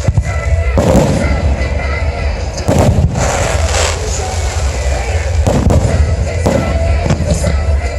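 Aerial fireworks shells bursting in a display, about eight booms in irregular succession, each trailing off in a crackling echo.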